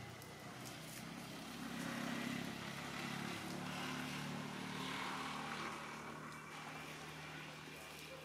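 A motor vehicle's engine running steadily, growing louder about two seconds in and easing off in the last few seconds.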